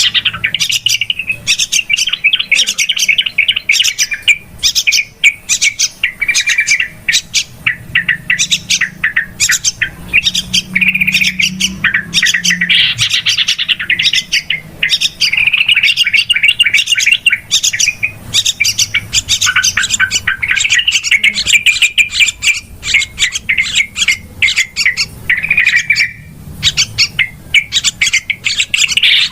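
Yellow-vented bulbuls (trucukan) giving a noisy, rapid, continuous chatter of calls, the lure sound used to draw in wild bulbuls.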